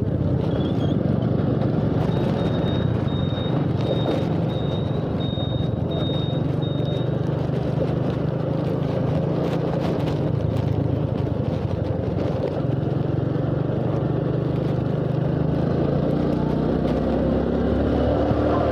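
Motorcycle engine running steadily under way, with a steady rush of air and road noise; near the end the engine note rises as the bike accelerates. A faint high beeping, about two beeps a second, sounds for a few seconds early in the ride.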